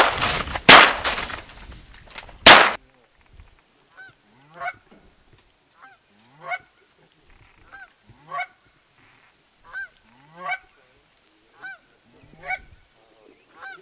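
Two shotgun shots in the first three seconds, then goose honks coming in pairs, a short note and a louder one, about every two seconds.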